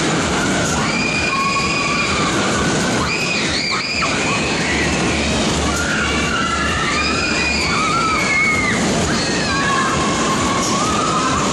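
Top America chenille fairground ride running at speed, its cars rumbling around the undulating circular track. High wavering squeals and shrieks come and go over the rumble.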